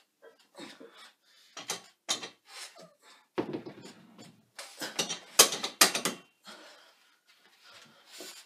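A man's strained grunts and heavy breaths as he struggles with a 50 kg barbell on a bench press and fails the lift. About five to six seconds in comes the loudest stretch, with a few sharp knocks as the tipping bar hits the bench and rack.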